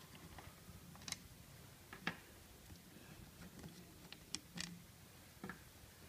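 Faint, scattered light clicks of small steel Torx bolts being lifted out of the dryer housing of a Land Rover EAS air compressor by hand, about seven in all.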